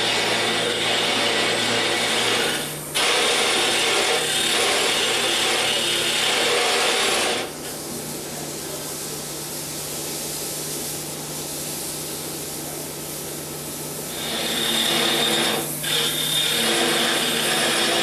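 Wood lathe turning a wooden blank while a hand-held turning tool cuts into the spinning wood, a loud rasping scrape over the lathe motor's steady hum. The cutting drops away for several seconds in the middle, leaving a quieter hum, then comes back near the end.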